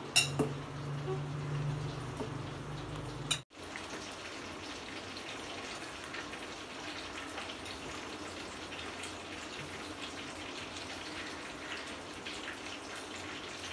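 Wet squelching and crumbling of boiled shark flesh being mashed with spice powders by hand in a steel bowl: a steady run of soft, small wet clicks, broken by a very brief dropout about three and a half seconds in.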